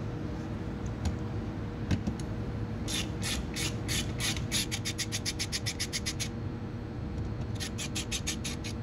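Ratcheting socket wrench on a long extension clicking in rapid runs as it turns out a 10mm door-panel bolt. One run of about three seconds, the clicks coming closer together toward its end, then a shorter run of about a second.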